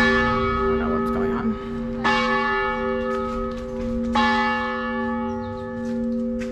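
A large bell tolling: three strikes about two seconds apart, each ringing out and fading over a steady lingering hum.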